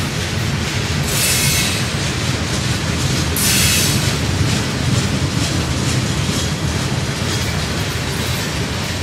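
Loaded gondola cars of a freight train rolling past, with a steady rumble of steel wheels on rail. Two brief high-pitched wheel squeals come about one second and three and a half seconds in.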